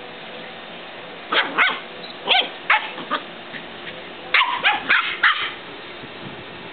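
Seven-week-old puppies yipping and barking in play: short, high, sharp calls that drop in pitch. They come in three clusters, the last a quick run of about five.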